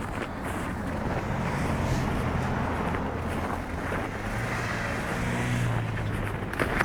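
An engine running steadily, with wind noise on the microphone.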